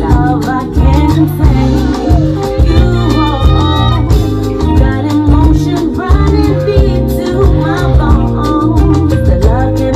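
Dance music played loud over a club sound system: a singing voice over a heavy bass line and a steady beat.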